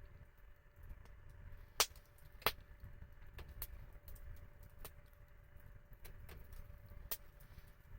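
Wood campfire crackling: scattered sharp pops at irregular intervals, the loudest two close together about two seconds in, over a low rumble.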